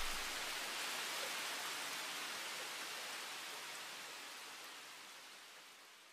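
An even, rain-like hiss fading slowly away to silence.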